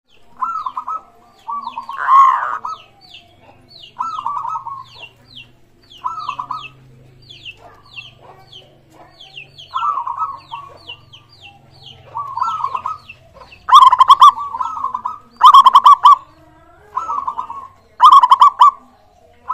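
Zebra doves (perkutut) cooing, a short rolling phrase about every two seconds, with three much louder phrases near the end. Over them runs a quick series of short, high chirps from a smaller bird.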